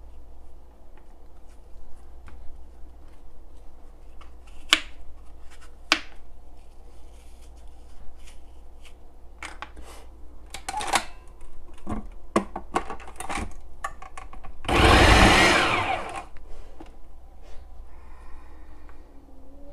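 Food processor running for about a second and a half with its slicing disc, cutting apple, amid scattered clicks and knocks. A cat starts to meow near the end.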